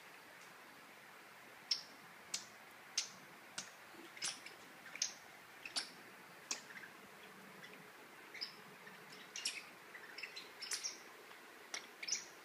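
Irregular sharp little clicks and taps on a hard tile floor, some in quick clusters: a Papillon puppy's claws scrabbling and a feathered cat wand toy striking the tiles as he pounces at it.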